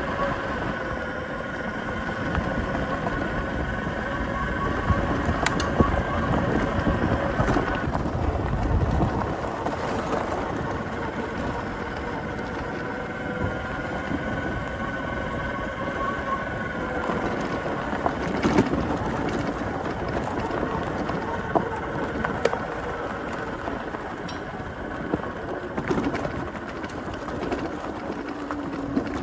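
Zero FX electric motorcycle riding a dirt forest trail: the motor's whine slowly rises and falls in pitch with speed over the rumble of tyres on dirt and wind buffeting the microphone. A few sharp knocks come from bumps and stones, around six seconds in and again after eighteen.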